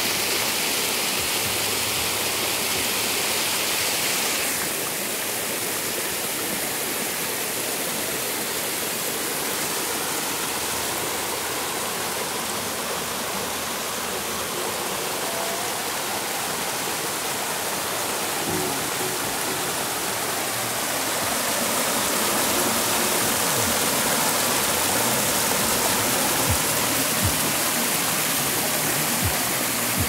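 Rain-swollen water rushing steadily in a shallow stream over a rock slab and pouring into a pool.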